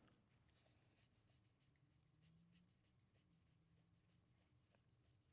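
Near silence, with faint clicks of trading cards being flipped through a stack by hand, a few flicks a second.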